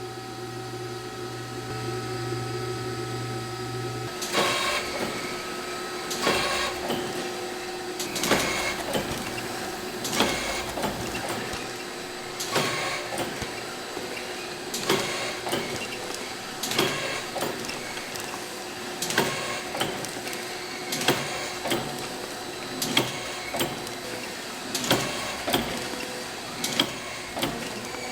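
Factory machinery running: a steady hum for the first few seconds, then a repeating mechanical clatter with a sharp clack about every two seconds, the rhythm of an automatic machine cycling.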